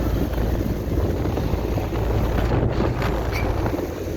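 Several ICP central air conditioner condensing units running: a steady low rumble with a rush of air from the condenser fans.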